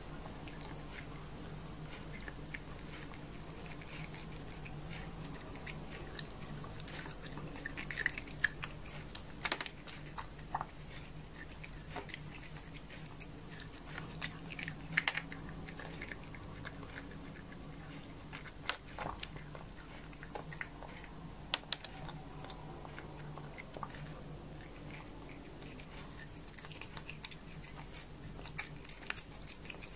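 Cat licking and chewing at a sprinkle-covered treat: wet mouth sounds with irregular sharp crunches and clicks as it bites, over a steady low hum.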